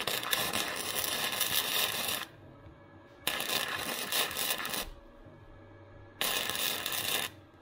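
Flux-core wire welder (Harbor Freight Titanium 125) arc crackling in three welds: about two seconds, then a second and a half, then about a second, with short pauses between them.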